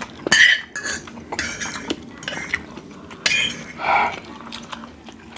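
Fork and spoon clinking and scraping against a plate as noodles are scooped up, with several short clicks and a few louder noisy scrapes.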